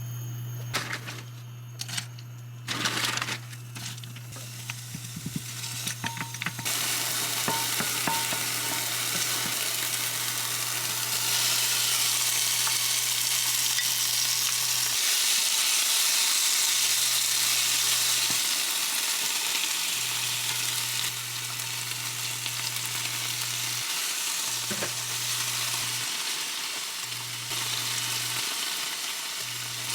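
A few knocks and clicks, then food frying in a pan: a steady sizzle starts about six seconds in and is loudest in the middle.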